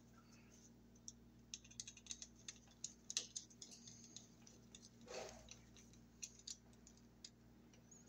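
Faint, irregular small clicks and scrapes of a screwdriver tightening the terminal screw of a light switch down on a wire loop, with the switch and its wires being handled.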